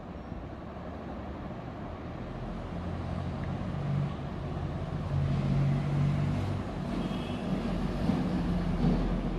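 Low engine rumble with a steady hum, growing louder about two seconds in and running on.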